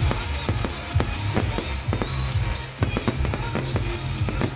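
Aerial fireworks bursting in quick succession, a dense run of bangs and crackles, over music with a strong bass.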